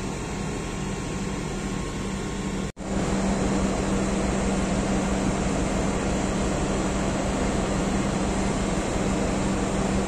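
Steady machinery hum with a constant low drone under an even rush of noise, cut by a momentary break about three seconds in and slightly louder after it.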